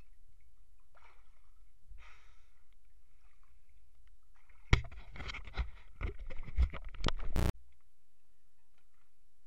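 Underwater sounds of a scuba diver in a flooded cave: a low rumble with short bursts of exhaled regulator bubbles, then a run of sharp knocks and clatter from about five seconds in, the loudest part, which cuts off suddenly into a faint steady low hum.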